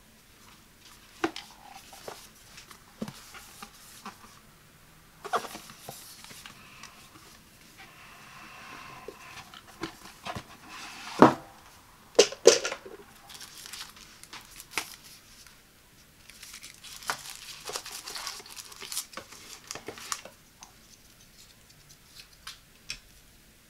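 Hands handling and opening a cardboard product box: taps and scrapes on the card, and paper and packing rustling, with a few sharper, louder knocks about halfway through.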